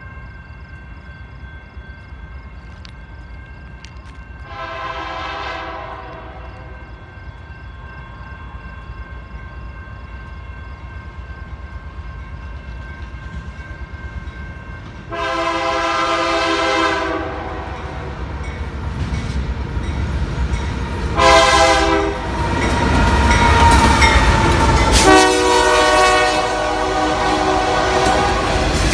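Diesel freight locomotive's air horn sounding four blasts, long, long, short, long: the grade-crossing signal. The rumble of the locomotive and the rolling empty coal hoppers grows loud over the last ten seconds as the train passes close by.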